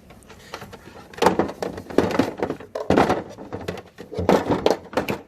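Hard objects being handled and put down: irregular knocks and clatter in four bunches, like parts of a cordless tool kit being moved about.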